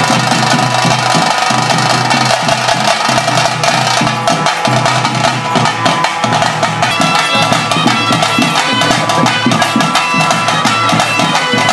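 Bhuta kola ritual music: a flute melody held over fast, steady drumming and clacking percussion.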